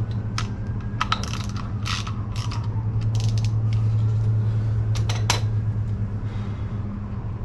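Socket ratchet clicking in short irregular spells as a 10mm screw is backed out, over a steady low hum.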